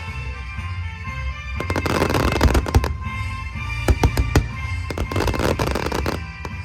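Fireworks bursting and crackling in rapid clusters of sharp bangs over steadily playing music.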